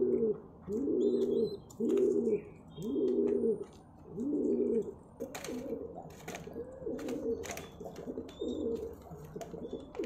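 Domestic pigeon cooing: short, low coos repeated about once a second, turning softer and less regular about halfway through.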